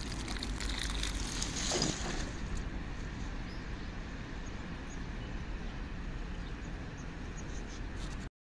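A stream of water poured onto potting soil around a courgette seedling, splashing and soaking in for about the first two seconds, then a steady low rumble and hiss of background noise.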